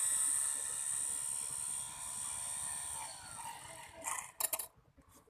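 Homemade 12 V mini drill's 775 DC motor whining steadily as it winds down, the whine fading and sliding lower in pitch about three seconds in. A few faint knocks follow near the end.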